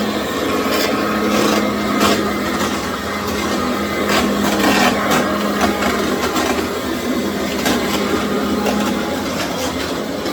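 Commercial vacuum cleaner running steadily as it is pushed over a tile floor: a constant motor hum under loud airflow noise, with scattered light knocks and scrapes from the head on the tiles.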